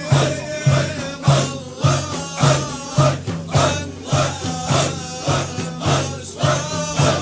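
Sufi Naqshbandi zikr: a group of voices chanting in a steady rhythm, with a pulse a little under twice a second, under a melodic voice line.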